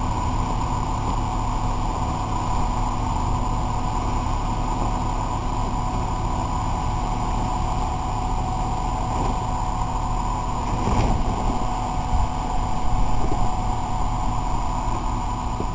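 Four-wheel-drive SUV engine running steadily under load as the vehicle strains up a steep rocky climb with its front wheels spinning, growing louder for a few seconds after about eleven seconds in.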